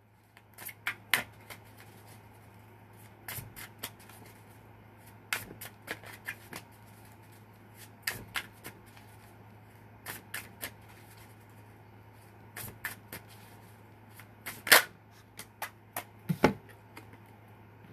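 Deck of tarot cards being shuffled by hand: irregular sharp snaps and taps of cards against each other, a few louder ones near the end, over a low steady hum.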